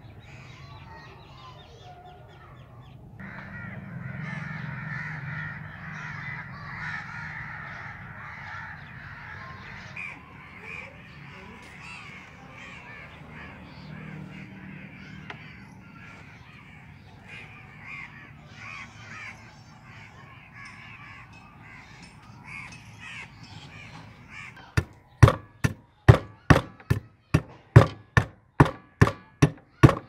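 Crows cawing in the background, then near the end a hatchet chopping at the end of a wooden hoe handle to taper it: a steady run of sharp blows, about two or three a second, much louder than the birds.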